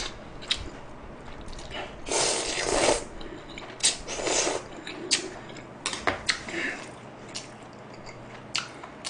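A person slurping spicy buckwheat noodles, in two long slurps a couple of seconds in, then chewing with scattered wet mouth clicks and smacks.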